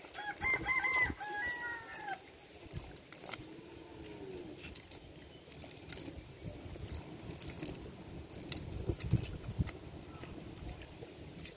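A rooster crows once, starting about half a second in: a run of short notes ending in a longer falling one. Around it are scattered small clicks, rustles and soft thumps from a cast net being handled on wet mud.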